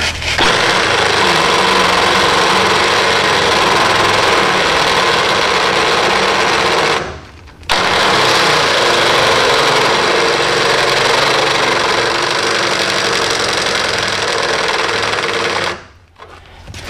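Cordless drill running under load with a large bit, drilling out the head of a steel rivet that holds a truck's rear spring hanger bracket to the frame. It runs steadily for about seven seconds, stops briefly, then runs again for about eight seconds before stopping.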